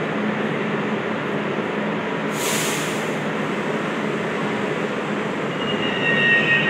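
Subway train rumbling through the station, with a short burst of hiss about two and a half seconds in and steel wheels squealing near the end.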